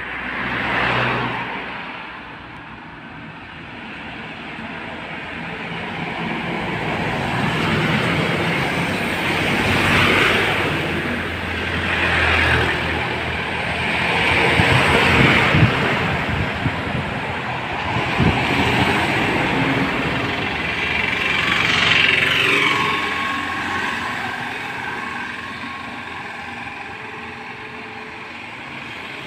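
Large tourist coaches driving past one after another, their diesel engines and tyre noise swelling and fading with each pass, loudest about fifteen and twenty-two seconds in.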